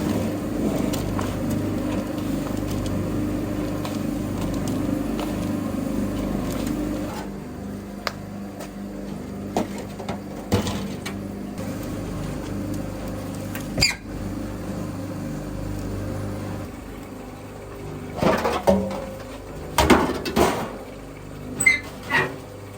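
A machine motor running with a steady hum that drops in level about seven seconds in and dies away over the following ten seconds. Then a few sharp knocks and clatters follow, with short high chirps near the end.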